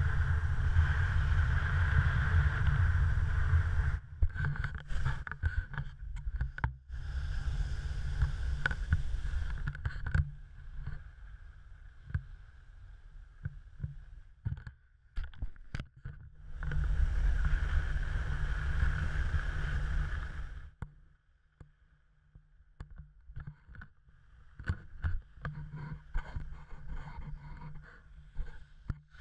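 Wind rushing over an action camera and skis running on snow, in loud stretches broken by quieter gaps dotted with sharp clicks and knocks.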